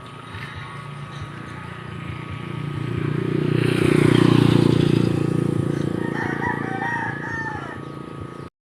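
Rooster crowing, set against a louder sound that swells over a few seconds and fades again.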